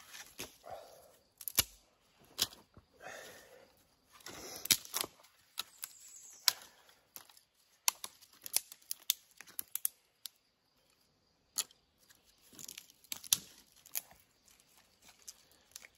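Dry leaves, twigs and brush crunching and rustling underfoot and in hand, with many scattered sharp snaps and clicks; it stops briefly about ten seconds in.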